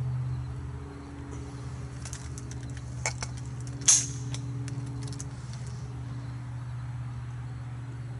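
SKS rifle being handled between shots: a series of small metallic clicks with one sharper clack about four seconds in, over a steady low hum.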